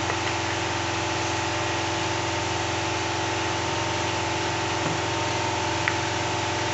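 A steady machine hum, even in level and pitch, with a few faint light clicks about five and six seconds in.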